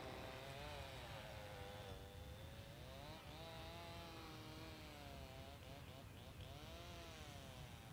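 Faint distant small engine running, its pitch swaying up and down about once a second.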